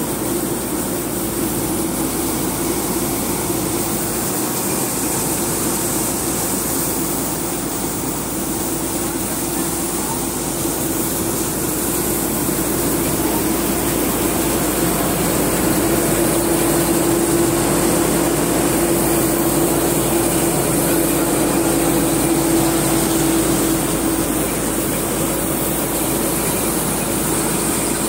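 Chunyu 4LZ-7 combine harvester running at close range while it unloads grain onto a pile: a steady mechanical drone with a hum that grows a little louder about halfway through.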